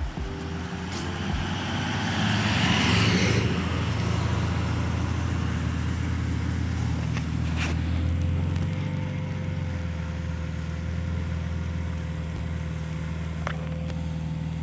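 Car with a deleted muffler, its exhaust swelling louder as it comes close about two to four seconds in, then settling to a steady idle.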